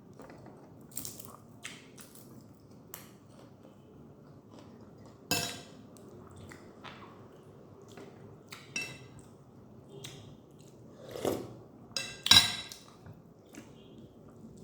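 Close-miked eating sounds of a person eating instant noodles, egg and rice by hand: chewing with scattered sharp wet mouth smacks and clicks, the loudest about five seconds in and again around eleven and twelve seconds in.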